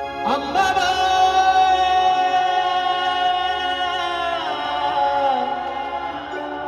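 A singer's voice glides up and holds one long sung note over a sustained synth chord, then slides down about four seconds later. A new sung phrase begins near the end.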